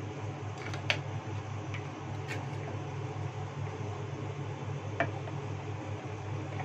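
A metal spoon clicking against a plastic bowl while stirring a wet grated-pineapple mixture: a few sharp clicks, the loudest about a second in and about five seconds in. A steady low hum runs underneath.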